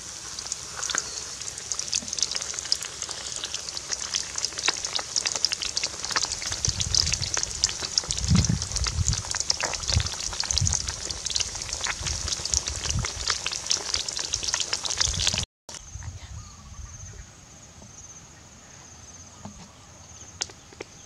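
Flour-coated fish frying in hot oil in a wok over a wood fire: a steady sizzle full of small crackles and pops, with a few low thumps about halfway. About 15 seconds in it cuts off abruptly to a much quieter open-air background with a thin, steady high hum.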